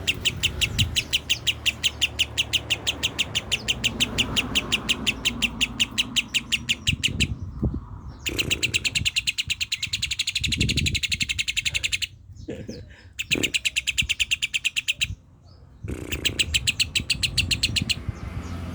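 Lovebird singing in long rapid runs of sharp, evenly repeated chirps, several a second, broken by a few short pauses.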